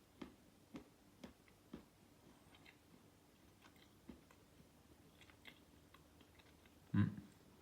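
Close mouth noises of someone chewing and sucking a square of 85% dark chocolate: small wet clicks about twice a second at first, then scattered fainter ticks, with one louder thump near the end.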